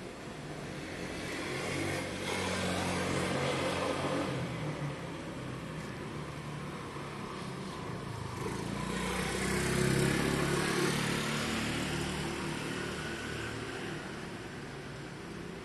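Street traffic: motor vehicles passing by, the engine and tyre noise swelling and fading twice, about three seconds in and more loudly around ten seconds.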